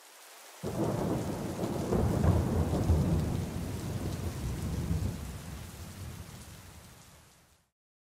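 A thunderclap over rain: a sudden crash about half a second in, rolling on and slowly dying away, then cutting off shortly before the end.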